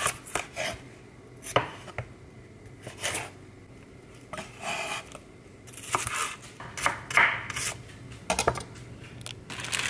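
Chef's knife chopping bell pepper and red onion on a wooden cutting board: irregular knife strikes against the board, some in quick clusters.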